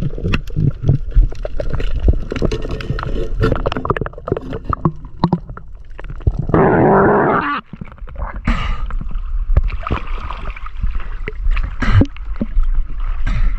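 Water sounds picked up by an underwater action camera: irregular clicks, knocks and crackles with gurgling water. Near the middle, a loud rushing hiss lasts about a second.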